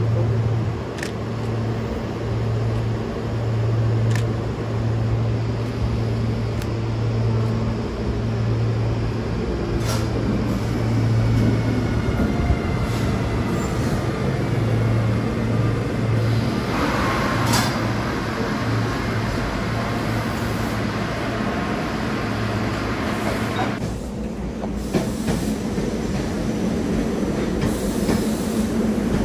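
SEPTA electric commuter trains at a platform: a steady low electrical hum, then a Siemens ACS-64 electric locomotive and its push-pull coaches passing close by, with a faint gliding motor whine and occasional clicks from the wheels on the rails.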